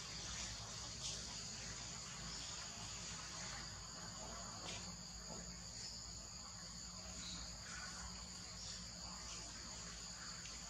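Steady chorus of insects, a continuous high-pitched buzz, over a faint low rumble, with a few faint clicks.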